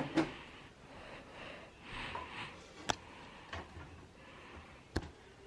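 Light handling noise from ceiling-fan blades and their brackets being handled, with two sharp clicks about two seconds apart.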